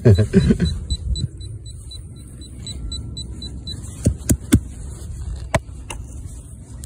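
Metal-detecting pinpointer beeping in a fast, even string of short high pips, about five a second, that stops about four seconds in; the owner thinks the pinpointer is failing. A few sharp clicks follow as the hole is worked, over a low wind rumble on the microphone.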